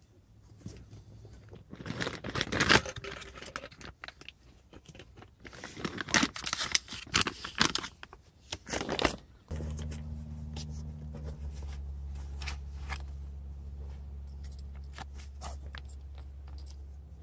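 Rustling and crinkling of a fabric cover and a plastic bag being handled and unpacked, in loud irregular bursts. About halfway through, a steady low hum starts abruptly and continues, with a few faint ticks and handling noises over it.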